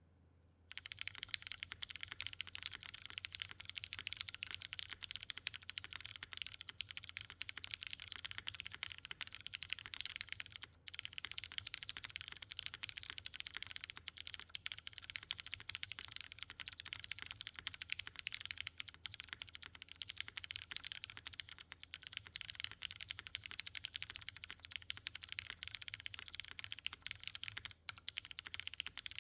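Continuous fast typing on a mechanical keyboard: a Perry IU polycarbonate case with an aluminium plate, lubed and filmed Cherry MX Hyperglide Brown tactile switches and GMK doubleshot ABS keycaps. Typing starts about a second in, with short pauses near the middle and near the end.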